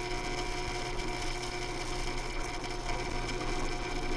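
Drill press running steadily with an even motor hum, its bit boring into a carved wooden lure body.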